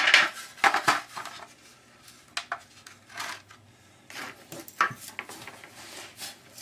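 Loose pieces of scrap metal from a stripped radiator clinking and clattering as they are handled and set down: a loud rattle at the start, then a string of separate knocks.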